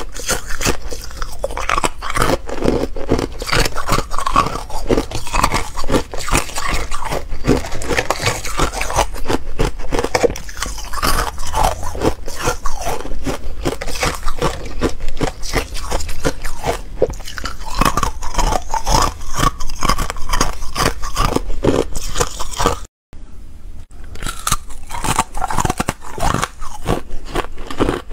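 Frozen ice being bitten and chewed close to the microphone: a dense, irregular run of sharp crunches and cracks. The sound cuts out for about a second near the end, then the crunching starts again.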